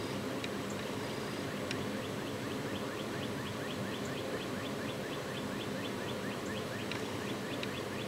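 Camera's internal autofocus mechanism ticking rapidly, about seven faint ticks a second, over a steady low background noise.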